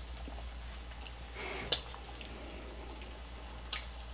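Battered bacon strips frying in shallow oil in a skillet: a soft sizzle with scattered small crackles, a brief louder hiss with a sharp pop a little under two seconds in, and another sharp pop near the end.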